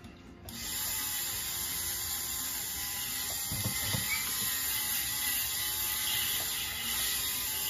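Jeweler's flex-shaft rotary tool running steadily, a hard bristle brush in the handpiece polishing a gold ring. It starts about half a second in and holds an even, high hiss-like whir.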